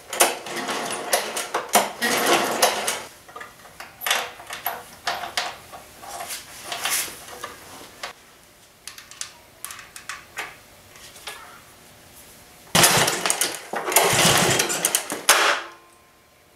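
Kohler XT7 173cc engine cranked over by repeated pulls on its recoil starter rope, loud clattering runs that come in bunches, with a last long run near the end. This is the cranking stage of a wet compression test, with oil in the cylinder and a gauge in the spark plug hole.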